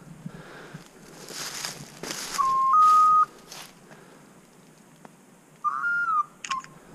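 Hunter's dog whistle blown in two loud, steady blasts: one about two and a half seconds in that steps up slightly in pitch partway through, and another near the end followed by a short toot. Rustling in brush is heard between the blasts.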